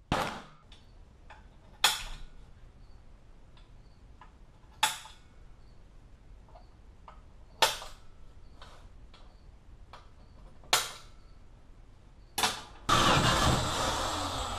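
A heavy cast-iron bench vise set down on a steel plate with a clank, followed by five more sharp metal knocks a few seconds apart. Near the end a corded electric drill starts and runs, drilling into the steel plate.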